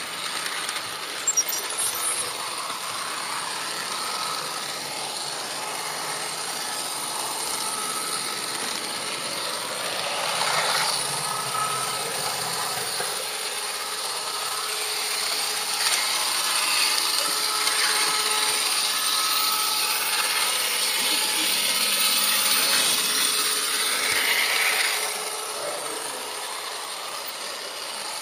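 HO-scale model train running along its track: a steady mechanical whirr of the small electric motor and wheels on the rails. It grows louder for a long stretch through the middle, then settles back.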